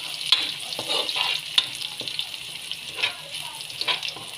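Minced garlic sizzling in hot oil in a wok as it browns, stirred with a spatula that scrapes and clicks against the pan several times.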